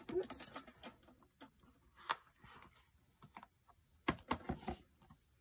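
Light clicks and knocks of a clear acrylic stamping platform's hinged lid being swung up and set down, along with card stock being handled. A cluster of knocks comes about four seconds in.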